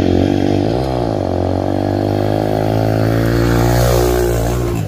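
Small dirt bike's engine running steadily, its pitch dipping briefly and coming back up about a second in. The sound cuts off abruptly near the end.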